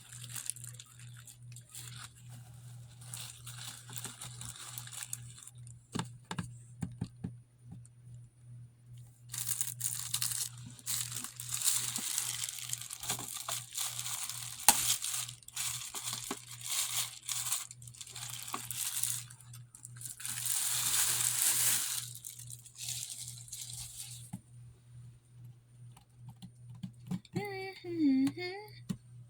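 Packaging being unwrapped: crinkling, rustling and tearing in stretches, loudest from about a third of the way in until near the end, with scattered clicks and a low steady hum underneath.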